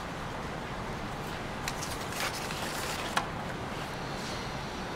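Handling sounds as a camera in its protective wrapping is packed into a cardboard box: a few short rustles and one sharp click about three seconds in, over a steady hiss.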